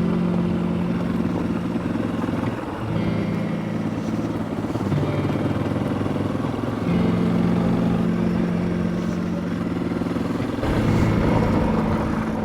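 Honda CRF 300 Rally's single-cylinder engine running under way at fairly steady revs, its pitch holding and then shifting in steps every few seconds, as with throttle and gear changes.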